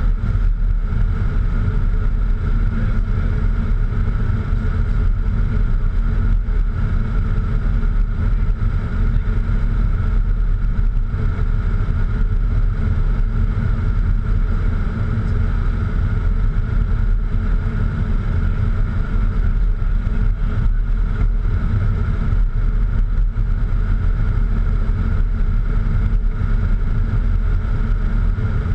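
Steady cockpit noise of a Cessna Citation X business jet in flight: a deep rumble of airflow and its twin turbofan engines, with a steady hum running through it.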